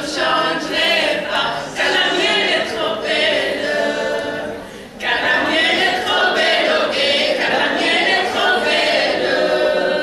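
A class choir singing a French song a cappella, in sustained phrases with a short break about four and a half seconds in.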